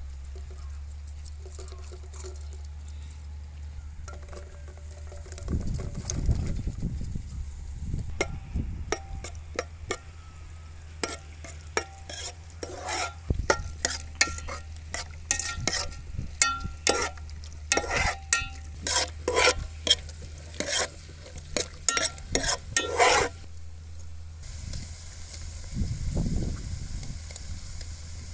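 Chopped onions, green chillies and capsicum frying in oil in an aluminium pot, with a steel spoon scraping and clanking against the pot in quick strokes as they are stirred. The clanking stops a little before the end, leaving a steady sizzle.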